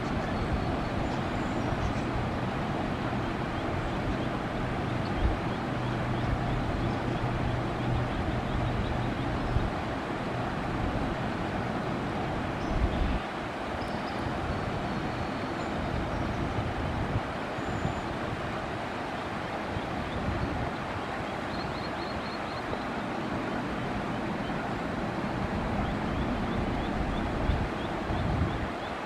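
Steady rushing of water spilling over a low concrete dam. A low hum runs under it for about the first third, and a few faint high chirps come now and then.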